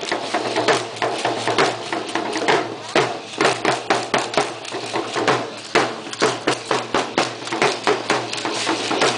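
Rhythmic percussion for a matachines dance: sharp, evenly spaced beats, about three a second, over a steady low tone, with voices in the crowd.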